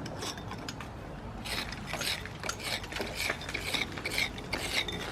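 An irregular run of sharp metallic clicks and scrapes, about two or three a second, starting about a second and a half in.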